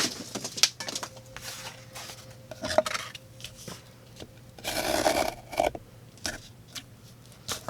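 Folding knife's M390 blade cutting and scraping through cardboard and packing tape: scattered clicks and short scrapes, with one longer rasping stroke about five seconds in.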